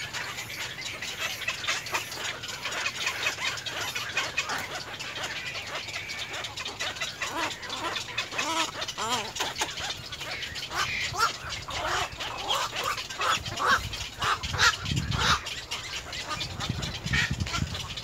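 Many short, rapid bird calls repeating throughout, busiest in the second half, with low rumbles over the last few seconds.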